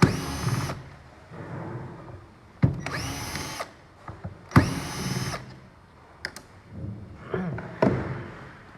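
A small power drill running in three short bursts, each under a second and about two seconds apart, with a few lighter clicks afterwards.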